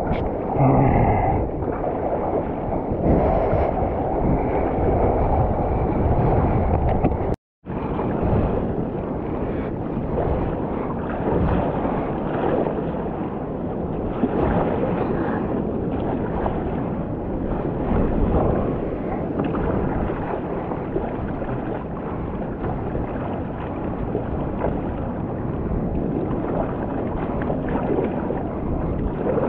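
Wind buffeting the POV camera's microphone over water sloshing and splashing around a stand-up paddleboard on small surf. The sound cuts out completely for a moment about seven and a half seconds in.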